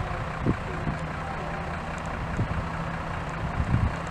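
Low steady rumble of a passenger train hauled by a ChS7 electric locomotive, receding into the distance, with a few short low thumps.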